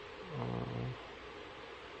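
A man's short, low, closed-mouth hum, "hmm", lasting about half a second, over a faint steady hiss of room noise.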